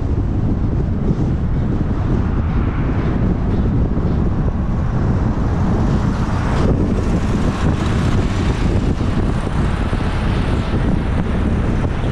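Steady wind rumble on the microphone of a camera riding on a moving vehicle, mixed with road and traffic noise.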